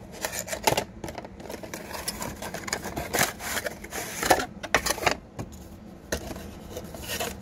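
Cardboard card-game box being handled and opened: its end flap worked open and the box turned over in the hands, with many short, irregular scrapes, rubs and taps.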